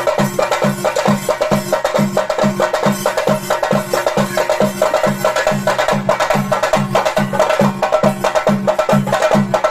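Theyyam ritual drumming: fast, dense stick strokes on chenda drums over a steady low beat of about three strokes a second.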